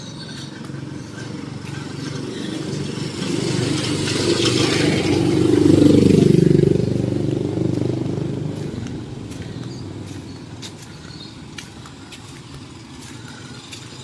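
A motor vehicle drives past, growing louder to a peak about six seconds in and then fading away.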